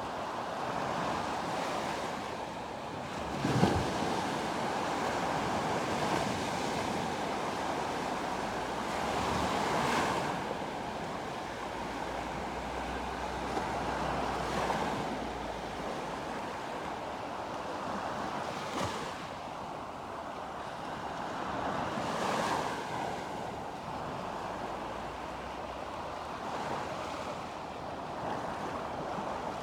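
Sea waves breaking and washing up the shore, a wave every four to five seconds, with some wind buffeting the microphone. A brief, loud thump about four seconds in.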